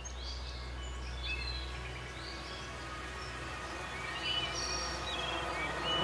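Forest ambience: scattered short songbird chirps and whistles over a soft hiss, with a low steady rumble underneath that fades out about halfway through.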